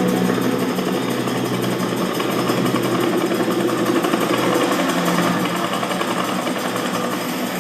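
Action-film soundtrack played through a Zebronics Juke Bar 9700 soundbar in Dolby Digital mode and recorded on a phone: a dense, steady mechanical rattle with the deepest bass missing.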